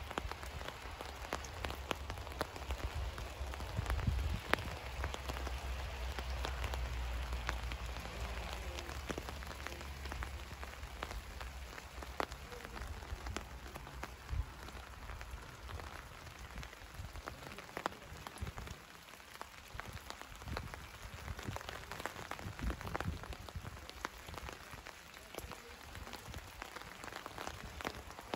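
Rain falling on the leaves of a snowball bush (Viburnum opulus 'Roseum'), a steady hiss dotted with many separate drop taps. A low wind rumble on the microphone fades out about twelve seconds in.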